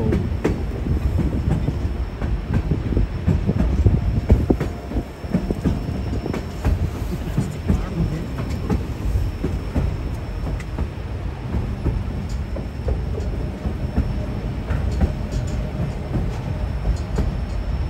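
Narrow-gauge passenger railcar rolling along the track: a steady low rumble with many small clicks, knocks and rattles from the wheels and car.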